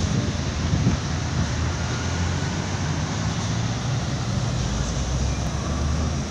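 Steady road traffic noise from a busy multi-lane road: a continuous hiss of passing vehicles with a low rumble underneath.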